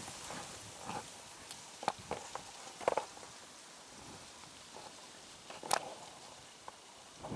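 Slow footsteps in dry leaves and grass: a few irregular crunches and twig snaps over a faint hiss, the sharpest snap coming almost six seconds in.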